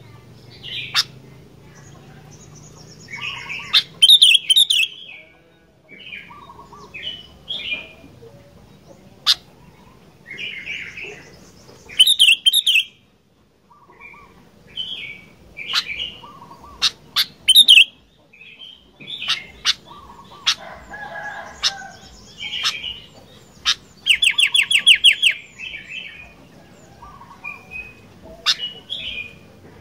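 A sooty-headed bulbul (kutilang) singing in full song: a run of short, chirpy whistled phrases broken by a few sharper, harsher notes and a fast rattling trill about twenty-four seconds in.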